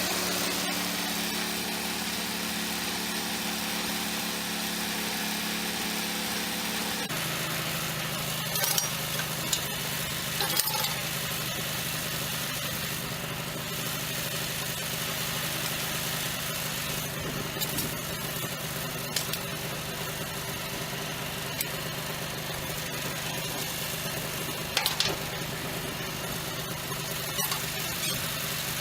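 Band sawmill's engine running steadily, its pitch stepping down once about seven seconds in, with a few sharp clicks.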